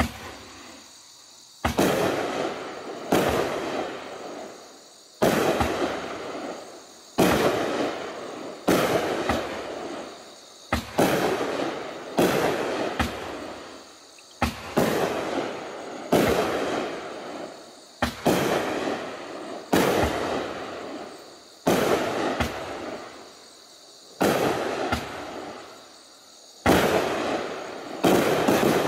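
A 200-gram Color Storm aerial repeater cake firing shot after shot: about sixteen sharp reports, one every one and a half to two seconds, each trailing off over a second or so.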